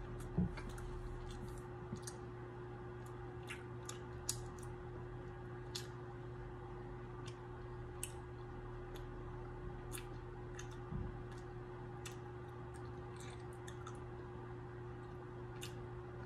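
Irregular sticky clicks from honey-soaked beeswax honeycomb being pulled apart and worked in the fingers, with a couple of low thumps, the loudest about half a second in. A steady low hum runs underneath.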